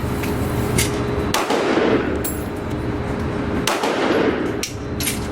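Several gunshots at a shooting range, a second or more apart, each followed by a long echoing tail.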